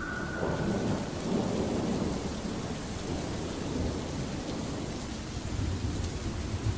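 Steady rain with rolling thunder: a low rumble builds about a second in and another near the end.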